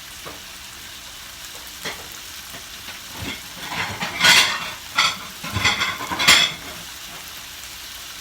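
Chicken pieces sizzling steadily in a frying pan, with a run of louder scraping and clattering bursts about three to six seconds in as the food is stirred.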